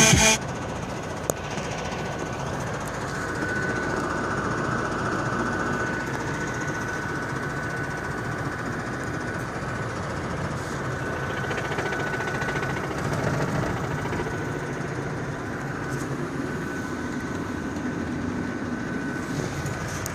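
VAZ 2109 engine running with a steady knock, which the owner takes for a dead engine.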